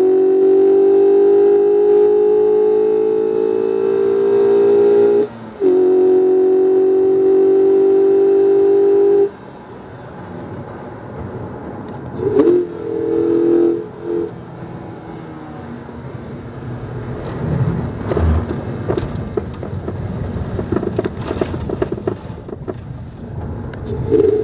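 Inside the cabin, the 2019 Mazda MX-5 RF's 2.0-litre four-cylinder engine pulls hard at full throttle, its pitch slowly climbing, with a brief break about five seconds in for a gear change. The engine note cuts off abruptly about nine seconds in as the throttle is lifted, followed by two short revs and then quieter road and tyre noise with knocks and rattles. The engine comes back on hard right at the end.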